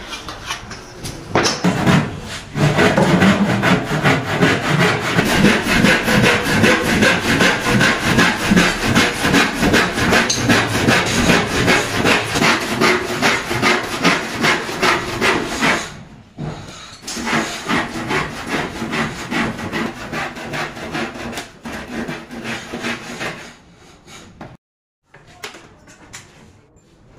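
A hand tool rubbed back and forth along the edge of a plywood board in quick rhythmic strokes, about three a second, smoothing or trimming the edge. The strokes are loud at first, turn softer a little past halfway, and thin out near the end.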